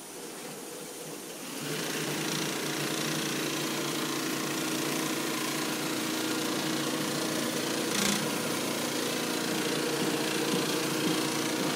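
Industrial mattress quilting machine running, its needle head stitching a padded panel: a steady mechanical hum with a hiss over it. It gets louder about two seconds in, and there is one sharp knock about two-thirds of the way through.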